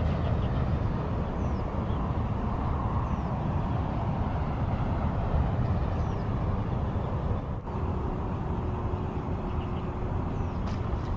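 Steady rumbling wind noise on the microphone at a riverbank, with a few faint, short, high chirps of small birds now and then.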